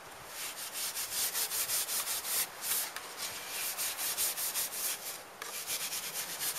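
Wire wool scrubbed back and forth in the groove on the back of a plastic vent flange, a quick run of scratchy strokes, several a second, with a short break about five seconds in. It is keying the plastic so the adhesive sealant will bond.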